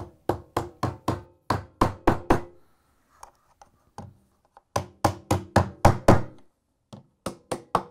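Small hammer tapping metal clamps onto the plastic rim seam of a washer's outer tub, sharp knocks about four a second in three runs with short pauses between.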